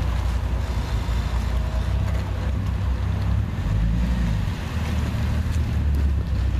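Twin-turbo W12 engine of a Mansory-tuned Bentley Continental GT running at low revs as the car rolls slowly past, a steady low rumble that swells slightly a couple of times.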